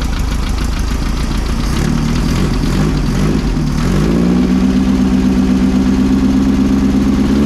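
1600cc air-cooled VW flat-four engine running, now firing on all four cylinders after swapped plug wires on cylinders 1 and 2 were put right. The engine picks up around two seconds in and rises again about four seconds in. It holds at a higher steady speed, then drops back near the end.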